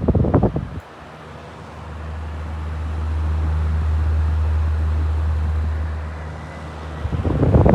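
1997 National Windy Mate box fan running, its air stream blowing on the microphone: a low rumble swells for a few seconds and then fades, with short rough gusts right at the start and again near the end.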